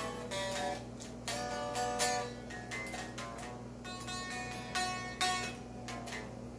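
Electric guitar played by hand: quick picked single notes and short runs, each note struck sharply and dying away. A steady low hum sits underneath.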